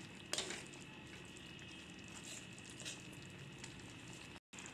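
Spatula pressing and scraping soft cooked tomatoes in a metal pan, faint, with a few light scrapes against the pan over a low steady background hiss.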